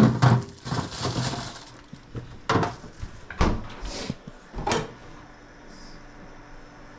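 A run of knocks and clatter from kitchen items being handled, mixed with rustling, lasting about five seconds and then stopping.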